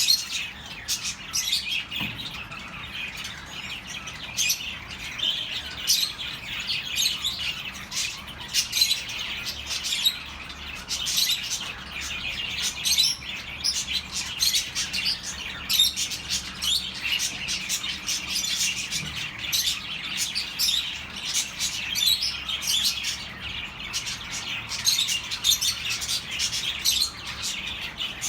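A flock of budgerigars chattering: many overlapping quick chirps and warbles.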